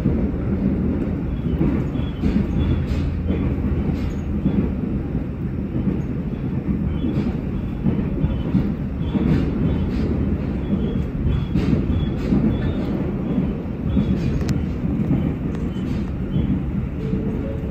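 Train running along the track, heard from inside the passenger car: a steady low rumble of wheels on rail, with occasional faint clicks.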